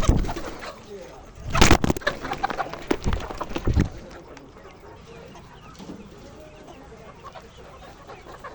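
Chickens clucking, with a few loud knocks in the first four seconds before the clucking carries on more quietly.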